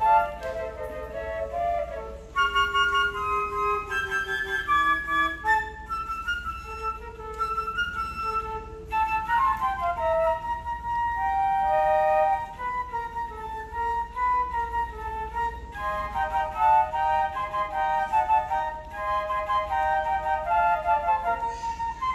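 Flute trio: three concert flutes playing a piece together, several melodic parts moving at once, with a short break about two seconds in.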